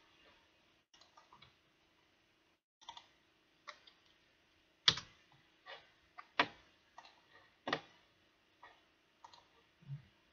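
Scattered single clicks and keystrokes of a computer mouse and keyboard, about a dozen sharp taps at irregular intervals, over a faint steady hum.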